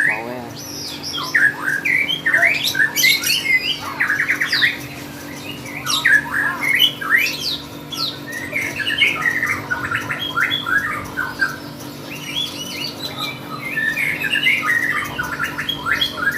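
Lovebird chattering in long, rapid runs of shrill chirps and squawks, several bouts with short lulls between them: the continuous 'gacor' song that contest lovebirds are kept for.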